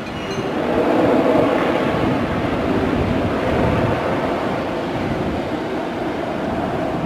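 Distant aircraft engines running steadily as a plane rolls along the runway after landing, a continuous rumbling noise that swells slightly about a second in.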